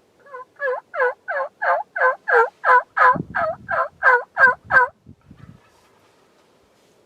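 Wild turkey yelping: a run of about a dozen evenly spaced yelps, roughly three a second, lasting about four and a half seconds, with a few soft low thumps under the later notes.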